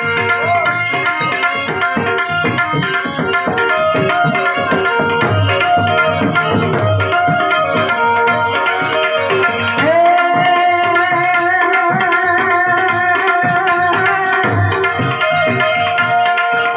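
Instrumental interlude of an Indian devotional song: fast, busy drumming under a melody. About ten seconds in, a sustained melody line enters, holding long steady notes.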